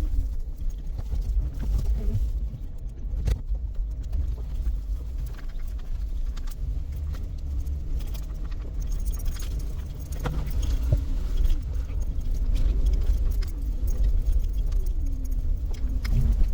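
Jeep Wrangler JK driving, heard from inside the cabin: a steady low rumble of road and engine, the engine note rising and falling, with rattles and jangling keys.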